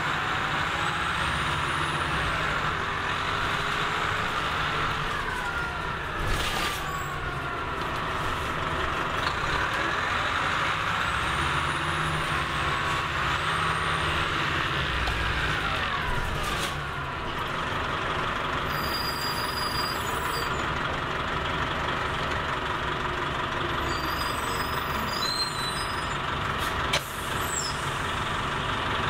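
Orion V transit bus heard from on board as it drives. Its whine rises in pitch as it speeds up and falls as it slows, twice, with short air hisses at about six and sixteen seconds in and a sharp click near the end.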